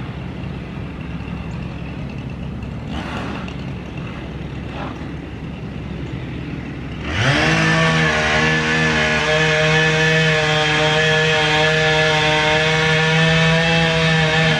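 A low steady engine hum, then about halfway through a chainsaw revs up suddenly and holds at high, steady revs until near the end.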